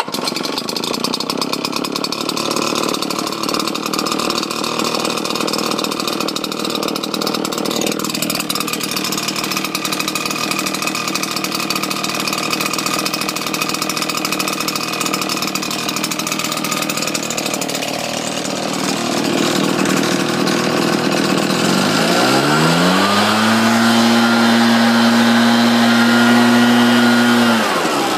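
Redmax 8500 backpack leaf blower's two-stroke engine starting up and running at idle with a steady rush of fan noise. About 22 seconds in it is throttled up in a quick rising whine, held at a high steady pitch, then let back down to idle near the end.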